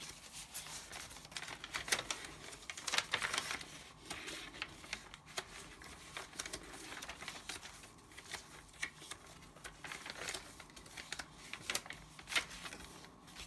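Pages and cards of a handmade paper journal being turned and handled: irregular rustles and light paper taps, busiest about three seconds in and again near the end.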